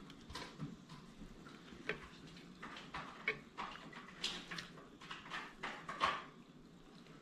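Close-up eating sounds: a person chewing and making mouth sounds, with scattered light clicks that include a fork on a plate.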